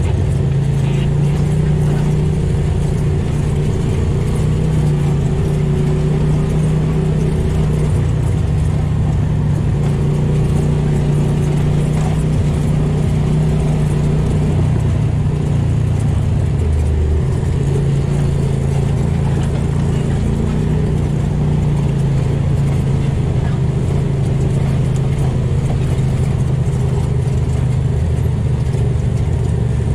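Polaris RZR side-by-side's engine running at a steady trail speed, heard from inside the cab as a continuous drone. The engine note shifts slightly about 17 seconds in.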